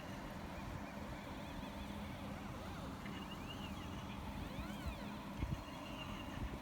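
Stepper motors of a homemade CNC machine writing text, whining in several short rise-then-fall glides as the axes speed up and slow down between strokes, over a steady low hum.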